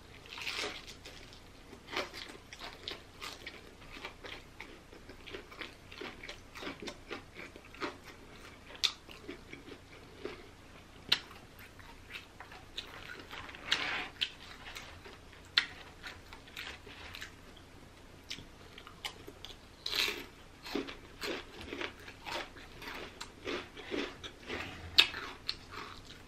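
A person biting into and chewing crispy Popeyes fried chicken, with irregular crunches of the breading.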